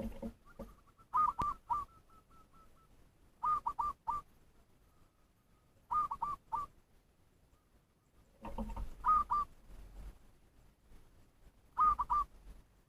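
A lure bird calling in short bursts of three or four quick, hooked whistled notes, repeated five times about every two and a half to three seconds: a rhythmic lure call meant to provoke rival wild birds.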